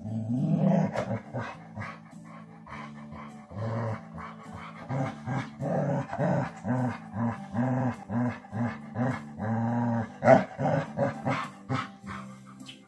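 An adult dog and a young puppy growling in rough play, in repeated short growls, over background music with sustained low notes.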